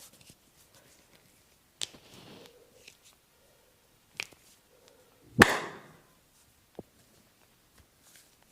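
Sharp percussive hits from a head massage: one crack about two seconds in, another about four seconds in, and the loudest a little after five seconds, with a short rough tail, then a faint tick.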